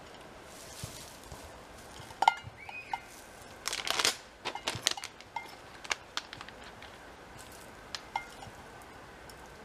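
Handling noise from gear being taken from a bicycle: scattered light clicks and knocks, a short burst of rustling a little under four seconds in, and a brief squeak just over two seconds in.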